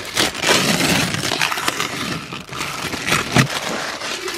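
Clear protective plastic film being peeled off a new bucket seat, crackling and crinkling continuously, with a sharper snap about three and a half seconds in.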